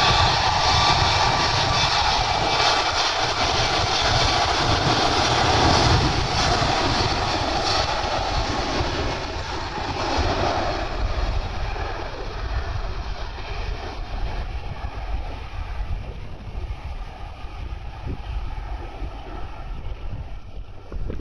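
Jet engine noise from a Boeing 737 MAX 8's CFM LEAP-1B engines at takeoff power, a steady loud rush with a faint whine, fading gradually over about twenty seconds.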